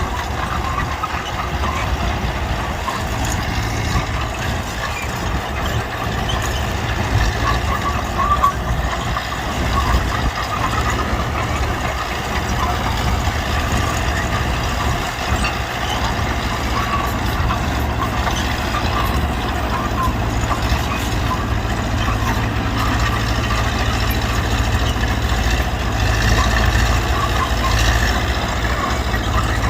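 Mitsubishi BD2G bulldozer's diesel engine running steadily as the machine works, a constant low drone with clattering noise over it.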